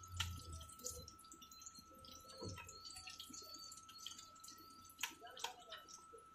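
Aloo chops deep-frying in a kadai of hot oil, a faint steady sizzle with scattered crackles and pops. Mixed in is the wet squish of a hand working thick batter in a pot. A faint steady high tone runs underneath.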